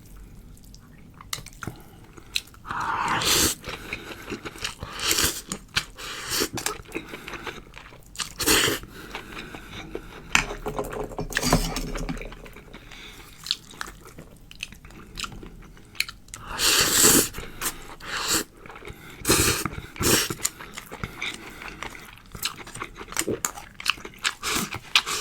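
A person chewing and biting food close to the microphone, with crunchy mouth noises and several louder bursts spaced irregularly.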